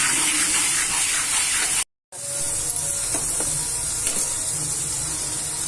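Tomato paste and spice masala sizzling in oil in a kadai, a steady hiss. It breaks off into silence for a moment about two seconds in, then carries on.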